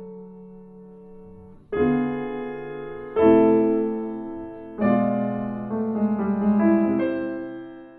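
Solo piano interlude: a soft chord, then louder chords struck about every second and a half, each fading away, with a few quicker notes before the music dies out near the end.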